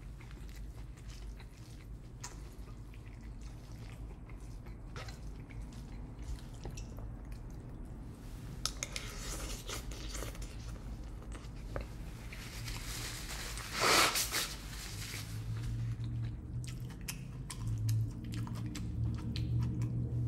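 Close-up chewing and mouth sounds of someone eating a steak burrito bowl, with scattered small clicks and a louder noisy burst about fourteen seconds in. A low steady hum sits underneath and grows stronger near the end.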